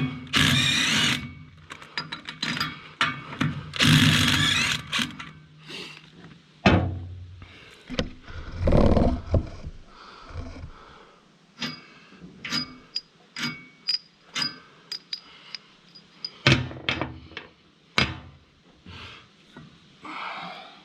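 Hand tools and loosened parts clanking and scraping against the steel of a wood chipper's knife mount as the mounting bolts and blade are worked free. There is a run of sharp metallic clinks and knocks, some of them ringing, with a few longer scraping stretches.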